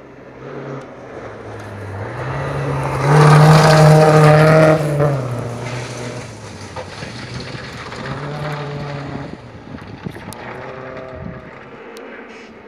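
Rally car on a gravel special stage passing at speed: its engine note builds to a loud pass about three seconds in, then comes back twice more, weaker, as the car drives away.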